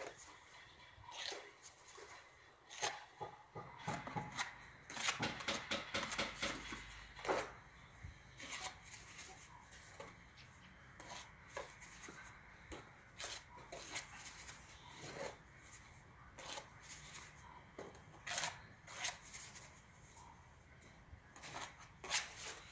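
Spatula scraping and tapping as wet grout mortar is scooped into the barrel of a caulking gun: quiet, irregular scrapes and clicks, busiest about five to seven seconds in.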